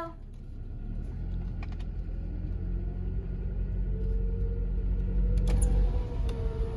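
Car engine running at low speed, heard from inside the cabin as a steady low rumble, with a couple of short clicks about five and a half seconds in.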